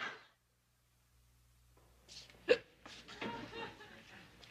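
About a second of near silence, then a woman crying: one sharp, hiccup-like sob about halfway through, followed by quieter sobbing.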